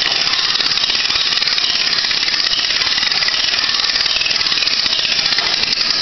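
Cut-down car jack being cranked to raise a sawmill's saw head, its ratchet clicking in a fast, even run.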